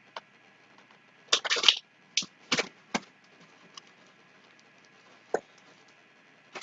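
Short crackles and light knocks of groceries and their packaging being handled on a table: a brief burst of crinkling about a second in, a few single crackles after it, and one more near the end.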